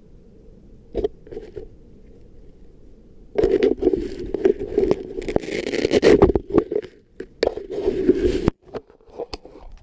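Close handling noise on a small action camera: fingers grip and rub over the body and microphone, giving loud, irregular scraping and clicking for about five seconds from a third of the way in. A single click comes about a second in, and a few more near the end.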